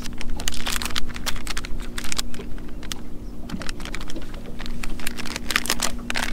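Rapid irregular clicking and crinkling as hands handle small fishing tackle close to the microphone, over a steady low electric hum.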